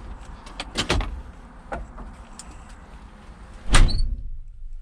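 Cab door of a Cat 335 Next Gen excavator being handled with a few light clicks and knocks, then pulled shut with one heavy thud about four seconds in. Once it closes, the outside noise drops away.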